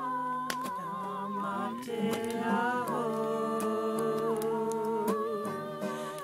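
Wordless singing and humming, slow held notes that waver, over an acoustic guitar being strummed.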